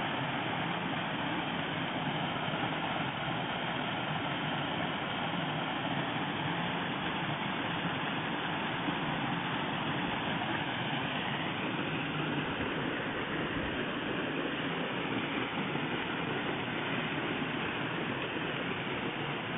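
Artificial wall waterfall pouring into a pond close by: a steady rush of falling and splashing water.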